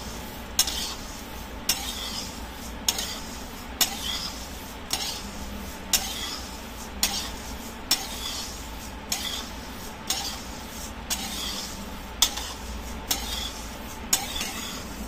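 Whole garam masala spices, mostly coriander seeds, dry-roasting in a metal kadhai and stirred with a metal spatula. The seeds rattle and swish as they are pushed around the pan, and the spatula clinks on the metal about once a second. The spices are being roasted until browned and fragrant, ready for grinding.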